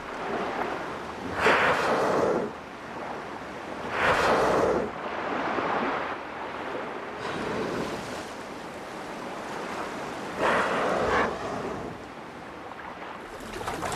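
Sea water splashing and churning as a group of North Atlantic right whales roll and thrash at the surface, with three louder whooshing surges spread through.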